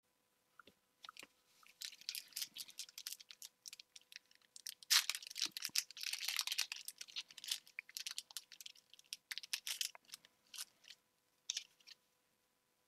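Foil booster-pack wrapper crinkling and tearing open. A dense crackle is loudest about five to seven seconds in, then thins to sparser rustles near the end.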